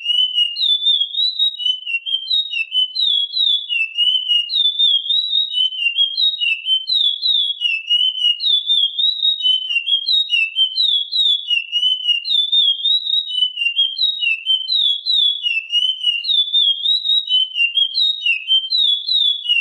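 Chestnut-bellied seed finch (curió) singing its classic song: a fast, unbroken run of clear whistled notes that swoop up and down without a pause.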